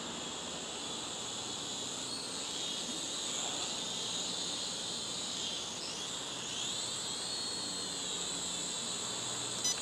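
Toy quadcopter drone's motors whining, the pitch rising and falling as it flies, over a steady chorus of crickets. Two short beeps near the end, from the controller being switched to a higher flight rate.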